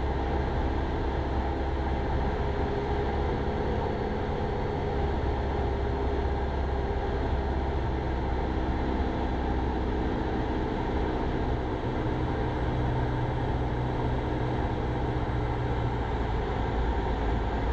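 Cessna 172 Skyhawk's engine and propeller droning steadily, heard inside the cabin in cruise flight.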